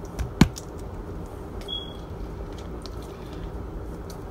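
Spoon scooping mayonnaise and tapping against a plastic bowl: one sharp knock about half a second in, then a few faint clicks, over a low steady hum.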